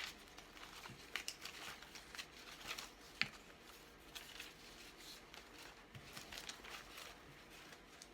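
Paper scraps and magazine cut-outs rustling and crinkling as they are handled and sorted, in short, faint strokes, with one sharp tap about three seconds in.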